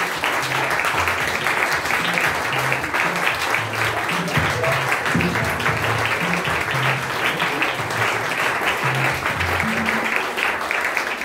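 Crowd applause, a dense continuous patter of many hands clapping, over music with a stepping bass line.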